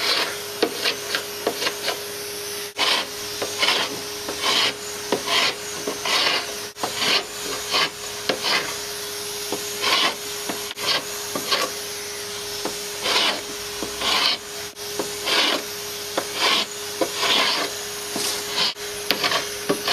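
A tungsten-carbide scraper blade rasping antifouling paint off a boat hull in short, uneven strokes, one or two a second. Under the strokes runs the steady hum of the vacuum cleaner that draws the paint dust away through the scraper's hose.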